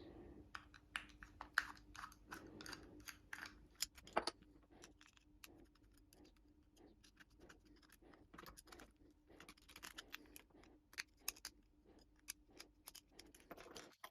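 Faint, scattered clicks and scrapes of hands working on a water pump's plug-in power adapter cable as its plug is taken off, over a faint steady hum.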